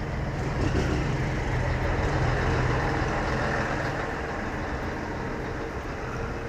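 Honda Fan 150's single-cylinder engine running at low speed as the motorcycle creeps between idling trucks and a bus on a wet road. The low engine sound of the trucks alongside mixes with it, a little louder in the first couple of seconds and then easing.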